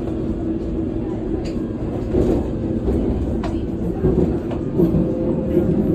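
London Underground Circle Line train running, heard from inside the carriage: a steady low rumble with a few faint clicks.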